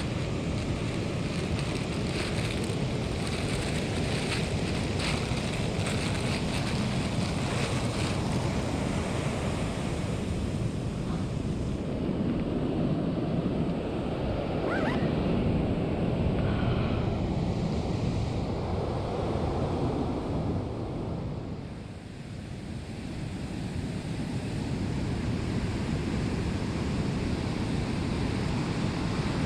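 Ocean surf breaking and washing up a sandy beach, swelling and ebbing, with wind buffeting the microphone.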